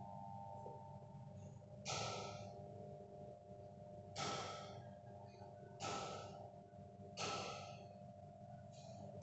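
Steady low hum with a few held tones from a powered Karl Mayer tricot warp-knitting machine that is not knitting, crossed by four short breath-like hisses about every one and a half to two seconds.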